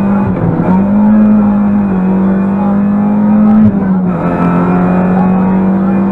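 Rally car engine running hard at high revs, heard from inside the stripped cabin; its pitch dips briefly about half a second in and again near four seconds, then holds steady.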